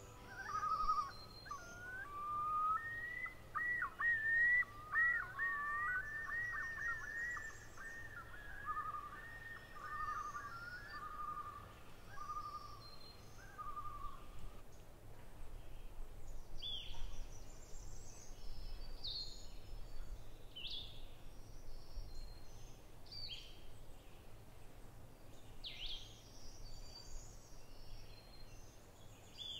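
Birds calling: a run of clear whistled notes that rise and fall repeatedly over roughly the first half, then scattered short, higher chirps for the rest, over faint low background noise.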